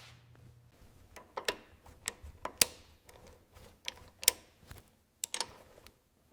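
Irregular light clicks and metallic taps, about a dozen, a few with a short ring: hand tools and metal parts being handled during reassembly work on the tractor.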